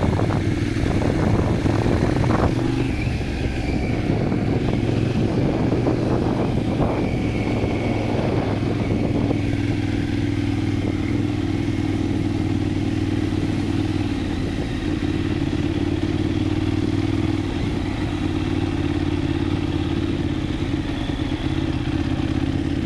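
Motorcycle engine running steadily at low road speed. A few knocks and rattles are heard in the first few seconds and again around seven seconds in.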